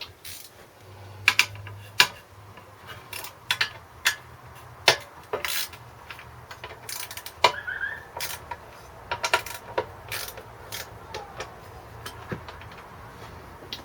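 Socket ratchet clicking in short runs and metal tools clinking, at an uneven pace, as the 8 mm bolts on a small engine are worked on.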